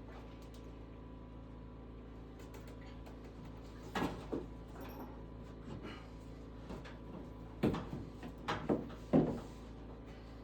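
Scattered knocks and clunks of objects being handled: two about four seconds in and a quick cluster of four near the end, over a steady low hum.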